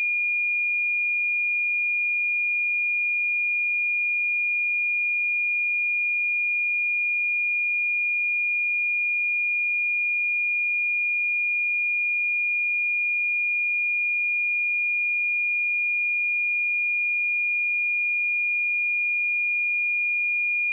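A pure 2426 Hz sine-wave test tone, one steady high-pitched note held at a constant level.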